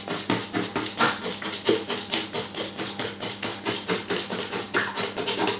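Hand whisk beating an egg, yolk, sugar and cornflour custard mixture in a large bowl, the wires clicking against the bowl in fast, regular strokes several times a second.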